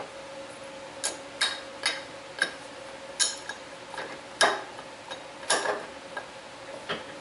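Irregular sharp clicks and clinks, about a dozen in a few seconds, from small metal objects being handled, over a steady hum.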